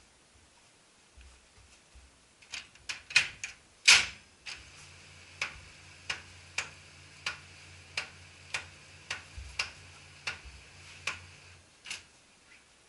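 Ricoh Aficio MP301SPF copier running with a low hum and a sharp click about every two-thirds of a second, the strange noise of a damaged transfer roller gear. A few louder clicks and a knock come just before the hum starts, and it all stops shortly before the end.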